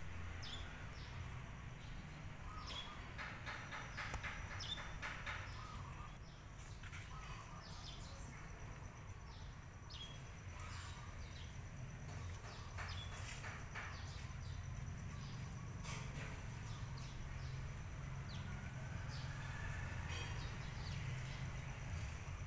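Outdoor ambience: scattered short bird chirps over a steady low rumble, with a faint steady high tone.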